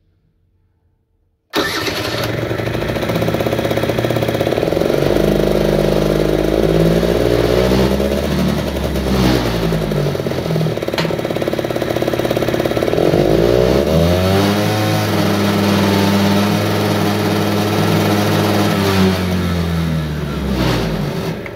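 Piaggio Quartz scooter's two-stroke engine starting abruptly about a second and a half in, then running and being revved up and back down twice, before dropping away near the end. It is run with the oil feed hose loosened to check that the oil pump delivers two-stroke oil.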